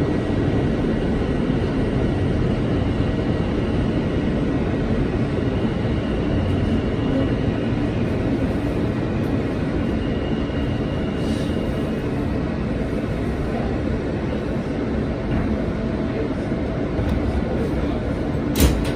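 Subway train running, heard from inside the car: a steady rumble of wheels on rails, with a faint high squeal twice. A sharp knock near the end.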